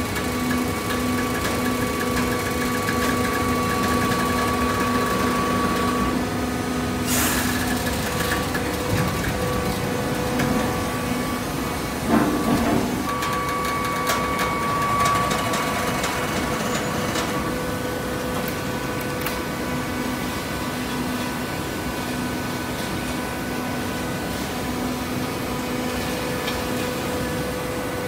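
Horizontal hydraulic baler running: a steady machine hum with several fixed tones, broken by a sharp clack about seven seconds in and a knock about twelve seconds in.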